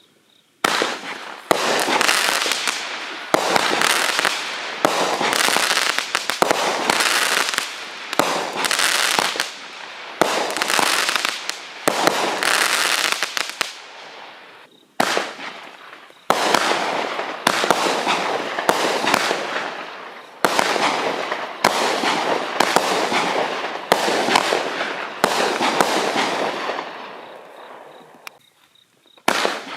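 A small 200-gram consumer firework cake firing shot after shot, a sharp bang every second or two. Each bang is followed by a dense crackling fizz from the crackle and palm breaks that dies away, and the volley fades out near the end.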